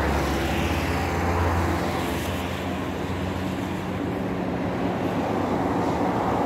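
Road traffic: a motor vehicle's engine running with a steady low hum over a constant rush of traffic noise. The hum is loudest in the first couple of seconds.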